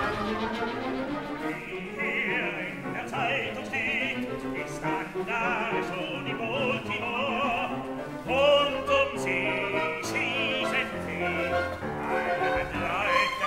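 Operatic singing with a wide vibrato over orchestral accompaniment.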